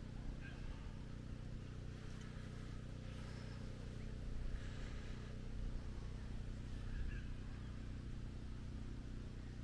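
A steady low mechanical hum, like an engine or motor running, with a few faint higher sounds over it.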